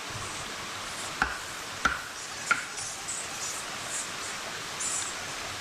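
Three chops of a knife on a wooden surface, about two-thirds of a second apart, over the steady rush of a forest stream.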